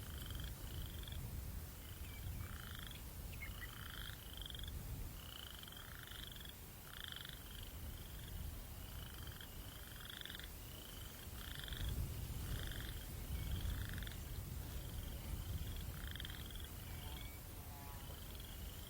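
Night-time outdoor ambience: a low rumble of breeze under a creature's short chirping calls, repeated steadily a little more often than once a second.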